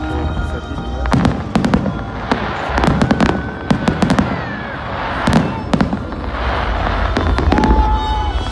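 Large aerial fireworks display: a dense, unbroken run of bangs and crackles from bursting shells over a continuous low rumble.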